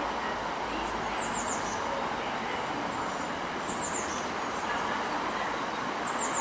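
Class 158 diesel multiple unit approaching, a steady running noise from the train. Over it a small bird calls three times, each call a quick run of falling chirps, about every two and a half seconds.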